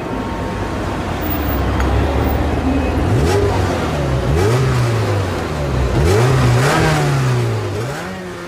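Motor vehicle engines revving in traffic, their pitch rising and falling several times over a steady rumble of road noise.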